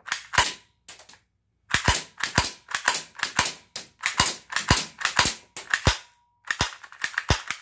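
Cheap spring airsoft pistol being cocked over and over, its slide snapping and the gun firing with each cycle, making a rapid string of sharp clacks, often in pairs, that pause briefly about a second in and again past six seconds. The gun goes off without the trigger being pulled, because its trigger mechanism is broken.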